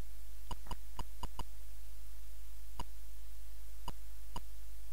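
Atari 8-bit computer key clicks, one short click per key typed: a quick run of five, then three more spaced out.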